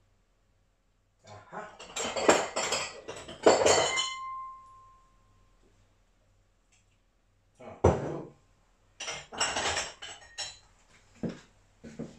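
Glass jars and kitchenware clattering and clinking while a smaller jar is picked out. This comes in two spells of knocks, and one clink rings on for about a second.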